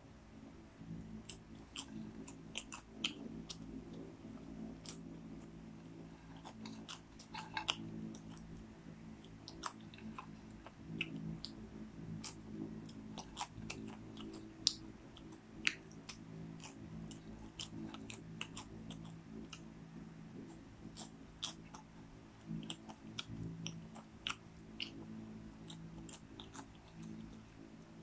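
A person chewing popcorn eaten by hand from a bowl: many short, sharp crunches, irregularly spaced, over a steady low hum.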